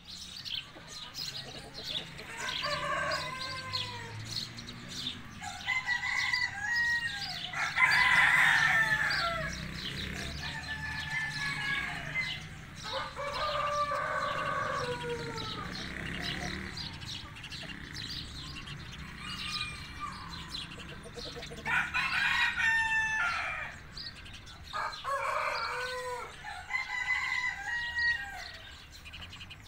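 White Brahma chickens clucking and calling, with a rooster crowing; the loudest, longest calls come about 8 and 22 seconds in.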